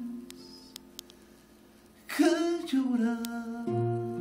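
A man singing to his own acoustic guitar: a held note dies away almost to silence, then about two seconds in a loud wavering sung note comes in, and guitar notes and a strummed chord ring near the end.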